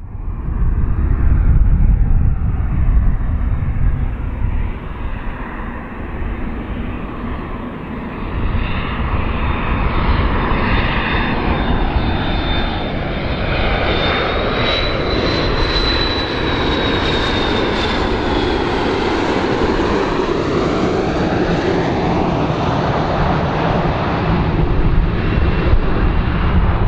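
McDonnell Douglas MD-80 series jetliner flying low on landing approach: steady jet engine noise, with a high whine that rises and then falls in pitch about halfway through as it passes.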